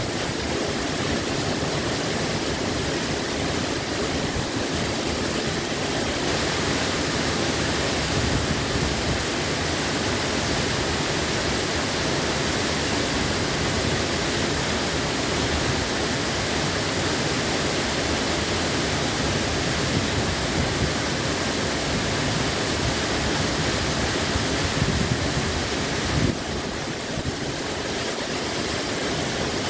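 Waterfall plunging down a rock face into a pool: a steady, continuous rush of falling water.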